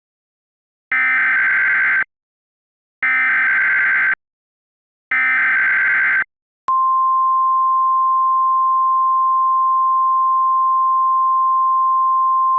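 Emergency Alert System SAME header: three bursts of warbling digital data tones about a second each, encoding a tornado warning. About seven seconds in they give way to the NOAA Weather Radio warning alarm, one steady unbroken tone.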